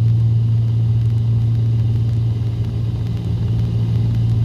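Twin piston engines of a Cessna 310 droning steadily, heard from inside the cabin, throttled back for a descent; one even low hum with no change in pitch.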